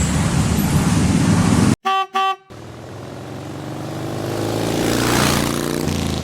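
Loud road traffic and engine noise that cuts off abruptly, then two short toots of a vehicle horn about two seconds in, followed by an engine revving up, rising in pitch and loudness.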